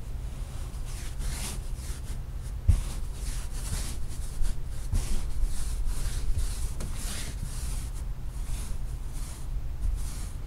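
Stiff-bristled push brush scrubbing a wet, soapy rug in repeated strokes, a short hiss with each stroke, a little over one a second. One sharp knock nearly three seconds in.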